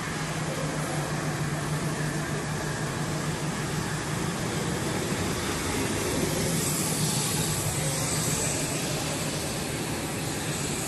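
Steady mechanical drone of a running SZ stranding and sheathing cable production line, with a constant low hum under a spread of machinery noise.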